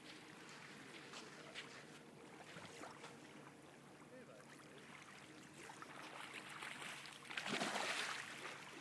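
Light water noise, then a loud splash lasting about a second as a hooked salmon thrashes at the surface about seven and a half seconds in.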